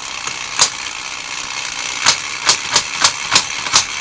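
Battery-powered toy running: its small electric motor and plastic gears whir steadily, with sharp clicks, one about half a second in and a quick run of five or six in the second half. It is the toy's timer mechanism counting down toward making the top figure pop off.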